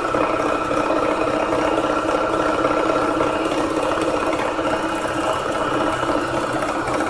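Needle-felting machine running steadily at speed, its needles punching through loose wool as a felt leaf is worked under the foot.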